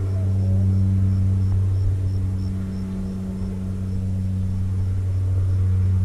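A steady low motor hum at one unchanging pitch with overtones, holding level with small swells.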